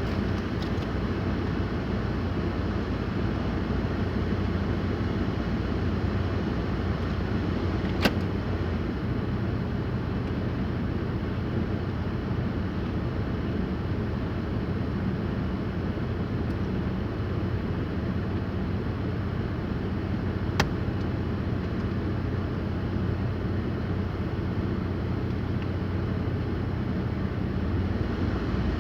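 Steady drone of a car driving on snowy roads, heard from inside the cabin, with a sharp click about eight seconds in and another about twenty seconds in.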